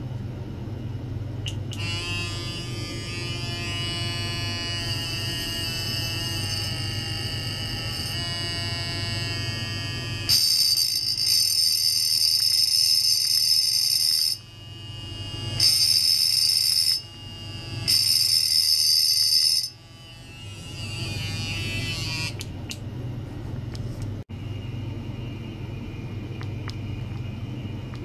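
Electric toothbrush buzzing. About ten seconds in, it is pressed against a metal pipe and the buzz turns much louder and harsher, cutting out and starting again a few times before fading away. A low steady hum runs underneath.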